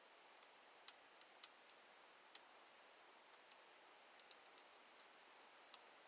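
Faint, irregular light clicks from a hand tool against metal screws as steering wheel mounting screws are tightened down, over near silence.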